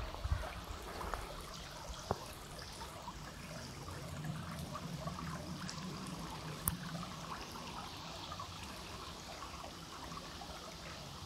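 Shallow stream trickling and babbling over stones, a steady fine splashing hiss, with a couple of small sharp clicks.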